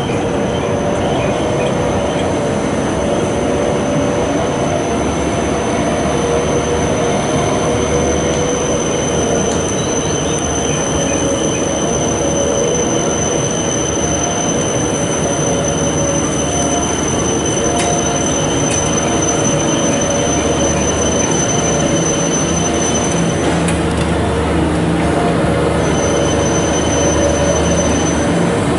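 Locomotive wheels squealing on the rails as steam locomotive C58 239 and an orange diesel shunter roll slowly through the depot tracks. It is one steady high-pitched squeal over a rumble of running gear, and it drops out for a couple of seconds near the end.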